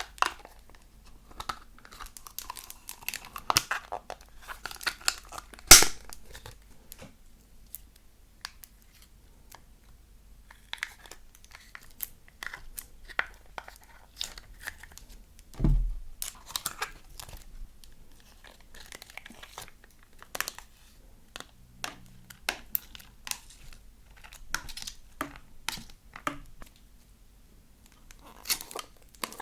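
Slime being squeezed, stretched and mixed by hand, giving an irregular run of sticky crackles and pops. There is one sharp pop about six seconds in and a low thud near sixteen seconds.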